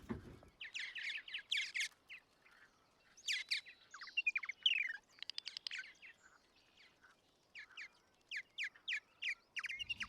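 Small bird chirping in three runs of quick, short chirps that slide downward in pitch, with pauses between the runs.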